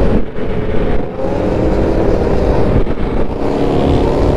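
Motorcycle engines running loud and steady, a pitched engine drone over a rough low rumble.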